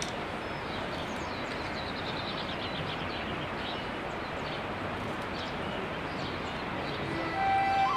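Steady outdoor ambience with a songbird singing a quick descending trill about a second and a half in. Soft music fades in near the end.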